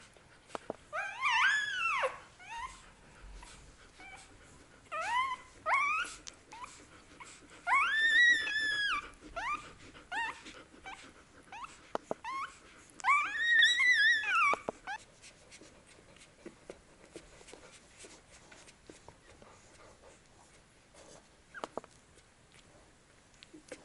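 Week-old husky puppies squealing and whimpering in high, arching cries, in four short bouts over the first fifteen seconds. After that only faint scattered clicks are heard.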